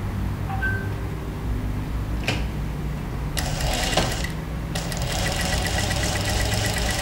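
Singer sewing machine humming, then stitching a seam along the marked diagonal of a fabric square from about three and a half seconds in, with a short pause before it runs on steadily.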